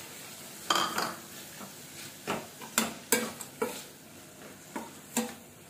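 Metal slotted spatula stirring chopped tomato and onion in a steel kadhai: irregular scrapes and about eight clinks of metal on the pan, over a faint sizzle of frying.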